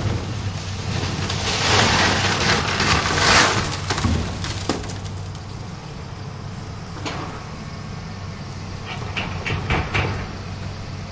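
Excavator at work, its diesel engine a steady low drone, with a loud rushing swell in the first few seconds and scattered knocks and clatters later, a quick run of them about nine to ten seconds in.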